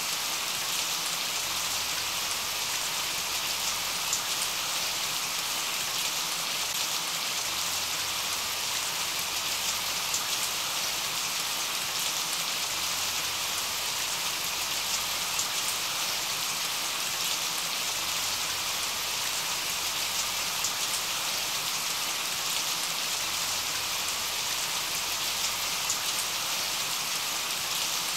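Steady rain falling: an even hiss with small drop ticks scattered through it.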